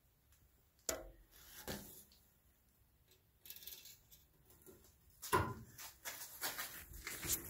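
Scattered knocks, scuffs and rustles of handling and movement close to the microphone. There is a sharp knock about a second in, and the noise grows busier and louder from about five seconds in.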